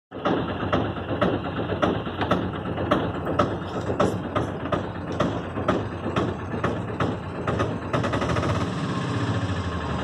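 Auto-rickshaw engine running, heard from inside its open cabin, with sharp rattles about twice a second. About eight seconds in, the rattles ease and the running settles into a steadier, even beat.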